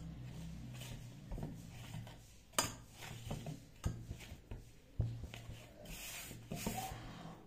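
Hands kneading flour dough in a stainless steel bowl: soft rubbing and scraping with a few sharp knocks against the bowl, the sharpest about two and a half seconds in, over a steady low hum.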